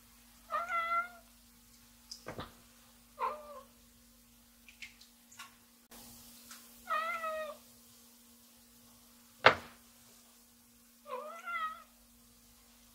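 Domestic cat meowing four times, each a short wavering call, spaced a few seconds apart. Between the calls come two sharp knocks, the louder one about two-thirds of the way through, over a faint steady hum.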